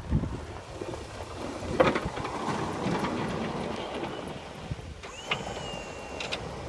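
1996 GMC Z71 pickup with a Fisher snow plow working a driveway: the truck runs under a steady wind-noise haze, with a few knocks and a brief high whine about five seconds in.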